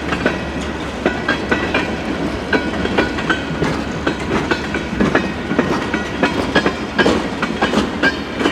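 CN freight train rolling past, its wheels clicking and knocking steadily over the rail joints under a continuous low rumble.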